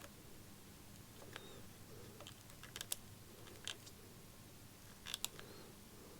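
Faint, scattered light clicks and taps of small hand tools being handled at a workbench. The sharpest click comes about three seconds in, and a quick pair comes a little after five seconds.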